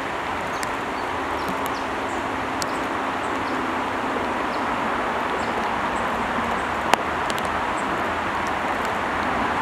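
Shallow creek water rushing steadily over rocks through a small riffle, with faint high chirps scattered through it and one sharp click about seven seconds in.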